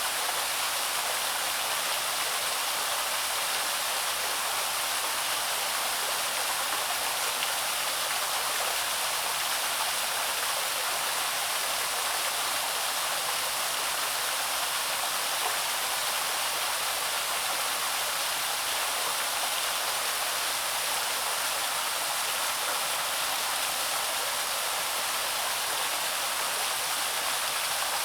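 Small waterfall on a woodland stream: water falling and splashing in a steady, even rush, mostly hiss with little low rumble.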